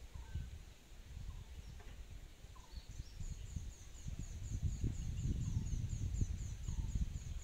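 Birds calling: short whistles now and then, and from about three seconds in a high chirp repeated rapidly, about four times a second. Under them a low rumbling noise grows louder in the second half.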